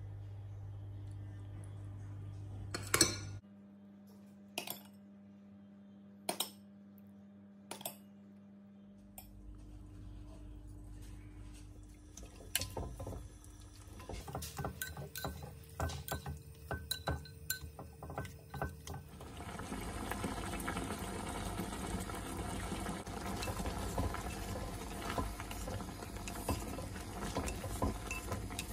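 Chopsticks and utensils clinking and knocking against a clay pot in separate strokes. About two-thirds through, a steady hiss sets in as frog legs bubble in sauce in the clay pot on the stove, with chopsticks clicking as they stir.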